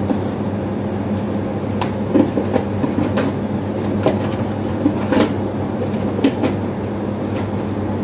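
A steady low mechanical hum runs throughout, with scattered light rustles and small clicks of paper and packaging being handled.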